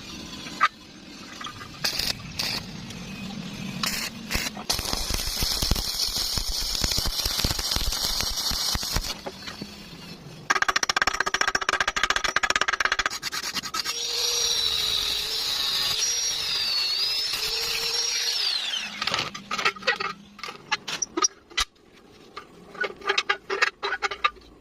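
Metalworking power tools running in a string of short segments, one with a steady whine that dips in pitch partway through, and sharp knocks and clicks in between.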